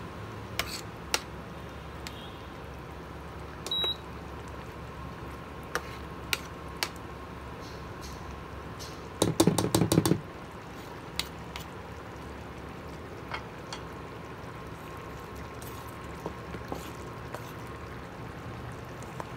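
Tomato-and-bean sauce simmering in a stainless steel frying pan while a metal spoon stirs it, clicking and scraping against the pan, with a denser run of louder knocks about nine seconds in. A faint steady whine runs underneath.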